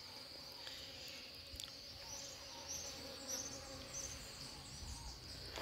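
Steady high-pitched trill of insects, cricket-like, with a faint lower steady hum. A few faint high chirps come about two to four seconds in.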